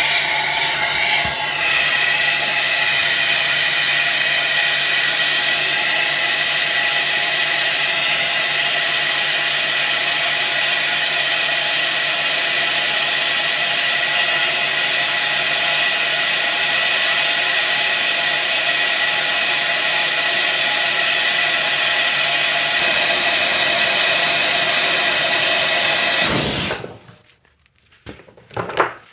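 Gas torch flame running steadily, heating a rusted-in, twisted-off exhaust manifold bolt in a cast-iron cylinder head to free it; it shuts off suddenly near the end, followed by a few light metal clatters.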